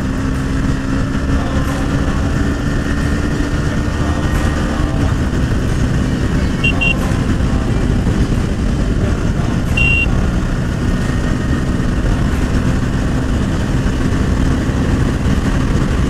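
Motorcycle ridden at steady speed, the engine note buried in heavy wind and road rumble on the rider's microphone. The engine's steady tone fades about five seconds in. Short high beeps come twice near the middle.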